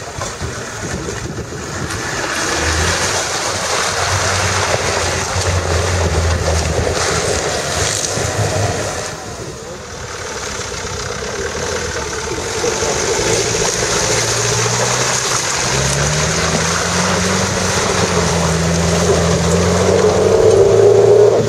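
Land Rover 4x4 engines working under load as the vehicles crawl through deep mud and up a muddy bank, the revs rising about two-thirds of the way through and loudest near the end.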